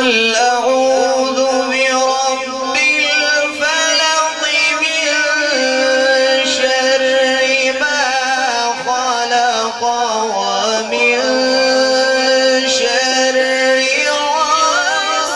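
A man reciting the Quran in melodic tilawat style, drawing out long held notes ornamented with quick pitch runs.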